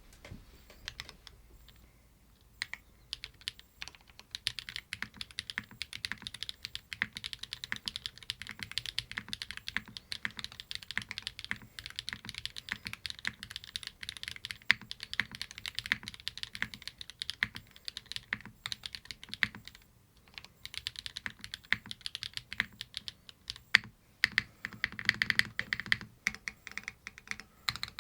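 Typing on a Frog TKL mechanical keyboard with Neon switches, and an Oil King switch under the spacebar. A few scattered keystrokes over the first few seconds, then steady, fast typing with a brief pause about twenty seconds in.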